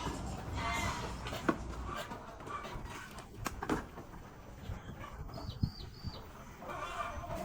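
Goat farm animal sounds: a short animal call near the start, a few sharp knocks, and a quick run of four short high bird chirps about five seconds in.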